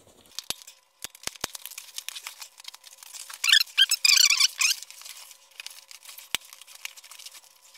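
A knobby rubber bicycle tire's bead rubbing and squeaking against the metal rim as it is worked off by gloved hands, with scattered small clicks and a louder squeaky stretch about halfway through.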